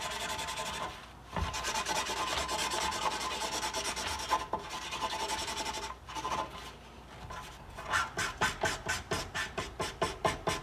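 Broad-tip washable marker scribbling on a paper towel, a continuous rubbing with a few short pauses. From about eight seconds in, the strokes turn into quicker, louder back-and-forth scrubs, about four a second.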